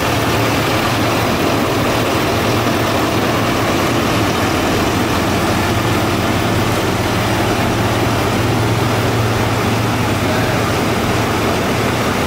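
A 6.6-litre Duramax turbo-diesel V8 idling steadily.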